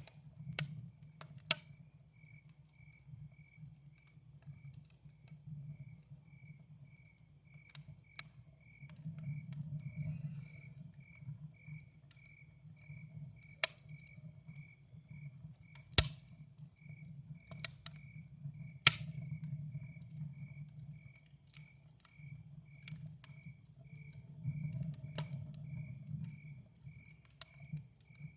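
Campfire crackling, with sharp pops every few seconds over a low steady rumble of the burning wood, the loudest pops about 16 and 19 seconds in. A cricket chirps steadily behind it, about two to three chirps a second.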